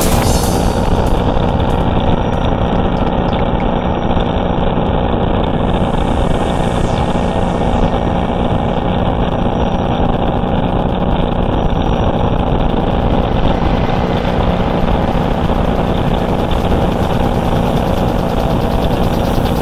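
Jetboat engine running steadily at speed, with water rushing in the wake. The pitch and loudness hold constant throughout.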